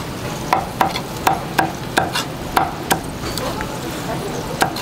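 Kitchen knife chopping on a thick wooden cutting board: a run of sharp knocks, about two to three a second, then a pause and one last knock near the end, over a steady hiss.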